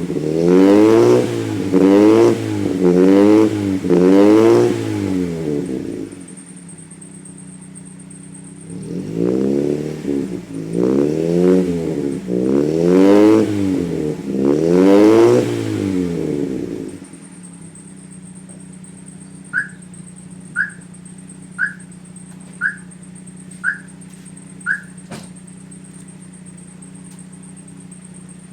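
Toyota Corolla AE101 engine through an FGK Fujitsubo Legalis chambered muffler, blipped in a string of quick revs, idling for a few seconds, blipped again in another run of revs, then settling to a steady idle. Near the end of the idle, six short high chirps come about a second apart.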